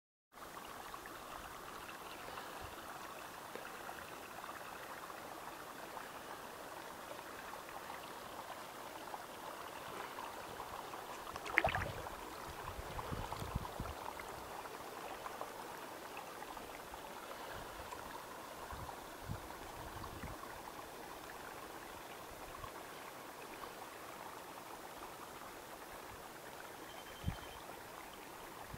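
Hot spring water trickling and flowing steadily. A sharp knock comes about twelve seconds in, followed by a few low bumps, with another thump near the end.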